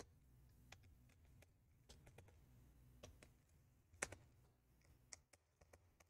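Faint, scattered small clicks and ticks of a screwdriver and screws being worked on a laptop heatsink assembly, the loudest about four seconds in.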